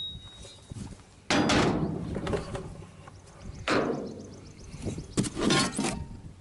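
Parts of an Agri-Fab plug lawn aerator being handled out of their packaging: several sudden knocks and scrapes, the first about a second in and a pair near the end, with wind rumbling on the microphone.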